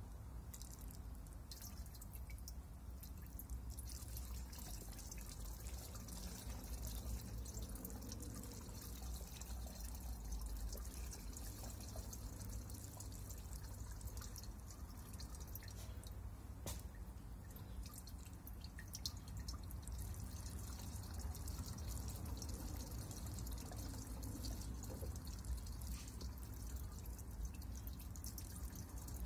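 Gasoline trickling in a thin stream and dripping from a gas can's flexible pour spout into another plastic gas can, with many small drip ticks over a steady trickle.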